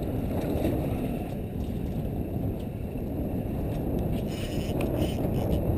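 Steady low rumble of wind buffeting the microphone over choppy sea, with water lapping at the hull of a small open boat.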